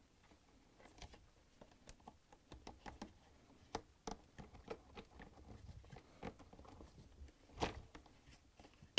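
Faint handling noises from a plastic dishwasher hose and sump parts being pushed and fitted by hand: scattered light clicks, taps and rubs, with a louder knock near the end.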